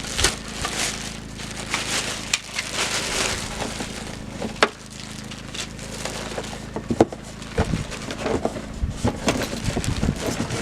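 Plastic packaging being crinkled and bunched up by hand, with a few sharp clicks and knocks as parts are handled.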